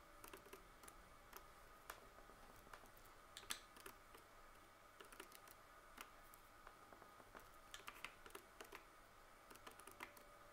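Faint, irregular clicks of Casio scientific calculator keys being pressed one after another.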